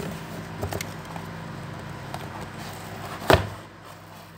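Handling of a cardboard Uno card box as the deck is taken out: faint taps and rustles, with one sharp knock about three seconds in.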